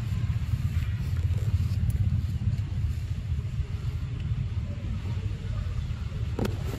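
Steady low rumble with an unsteady, fluttering level, and one short sharp sound near the end.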